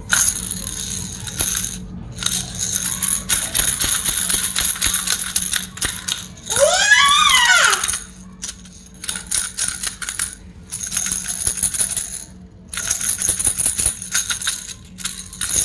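Plastic baby rattles being shaken in bursts, rattling and jingling, with short pauses between shakes. About six and a half seconds in, a pitched toy sound rises and falls for just over a second.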